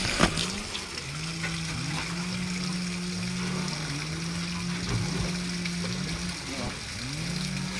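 Water splashing and streaming off the back of a truck bed loaded with fish, under a steady low motor hum that winds up in pitch each time it comes back in. A couple of sharp knocks near the start.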